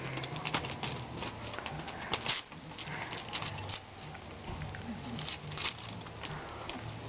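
Scuffling of a young goat's hooves and a dog's paws on concrete as the two tussle: irregular clicks and scrapes, heaviest in quick clusters about two and five seconds in, over a faint low rumble that comes and goes.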